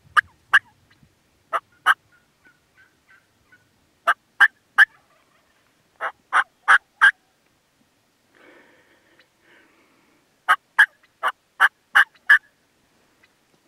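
Turkey yelping: loud, close, sharp notes in short runs of two to six, with pauses of a second or more between runs.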